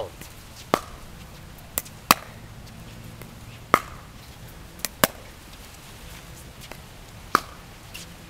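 Sharp, hollow pops of a perforated plastic pickleball struck by a paddle, about seven or eight at uneven intervals, some in quick pairs.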